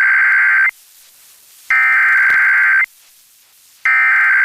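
Emergency Alert System SAME header data from NOAA Weather Radio: three loud bursts of shrill digital warbling, each about a second long and about a second apart. This is the coded header that precedes a severe thunderstorm warning.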